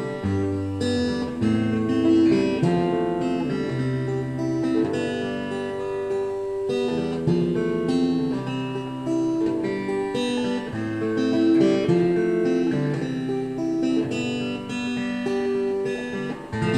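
Acoustic guitar with a newly fitted EQ pickup, played through a speaker: a continuous melody of ringing plucked notes over low bass notes.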